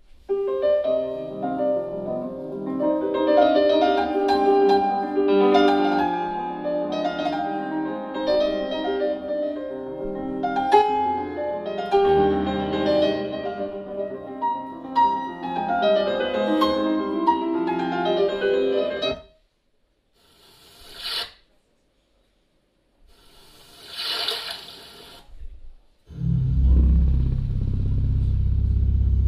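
Music played loud through a JBL PRX735 three-way 15-inch powered PA speaker, heard in the room. For most of the first twenty seconds it is a piano or keyboard-led passage. It stops, two short hissing swells follow, and about four seconds before the end a track with heavy deep bass comes in.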